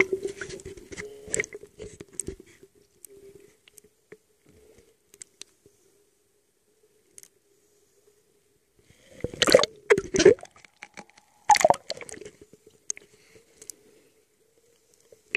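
Underwater sound through the camera: churning water and bubbles as the camera goes under, then two loud rushes of scuba regulator exhaust bubbles about nine and eleven and a half seconds in, over a faint steady hum.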